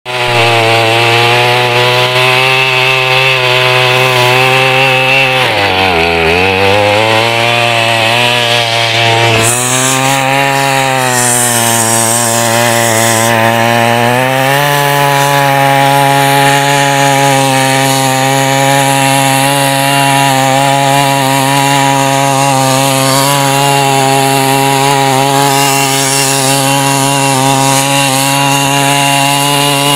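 A 68cc two-stroke mini weeder engine running at high revs while its tines till soil. About five seconds in the engine note sags and recovers, it dips again from about ten to fourteen seconds, then holds steady.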